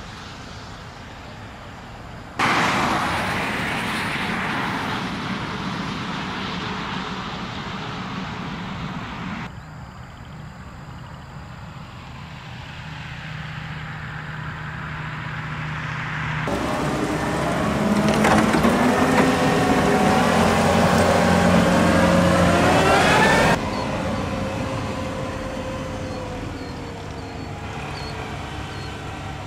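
Outdoor wind and traffic noise across several abruptly cut takes. In the second half a passing vehicle's engine rises and falls in pitch.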